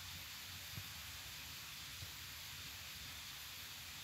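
Steady, faint hiss of heavy rain, with two brief low thuds about one and two seconds in.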